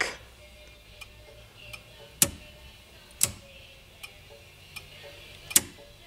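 Sharp mechanical clicks from the 1964 Chrysler tilt steering column as its turn-signal and tilt mechanism is worked by hand: three loud clicks, about a second apart and then after a longer gap, with a few fainter ticks between.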